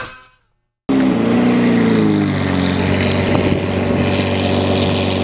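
Lamborghini Murciélago LP640's V12 running through an Fi Valvetronic catless exhaust. It cuts in suddenly about a second in, the revs ease down over the next second or so, and it then settles to a steady idle. The tail of a short logo sound fades out at the very start.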